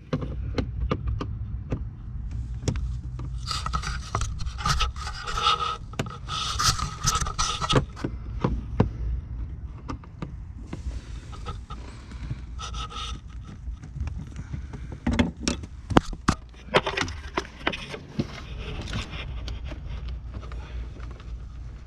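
Hands working a car's plastic interior trim loose: irregular scraping and rubbing with many sharp clicks and knocks as screws come out and the panel is pulled at, over a steady low hum.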